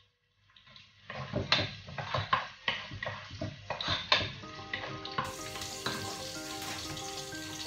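Wooden spoon stirring food frying in a pot, a quick run of scrapes and knocks against the pot over a sizzle. Background music comes in about five seconds in and carries on steadily.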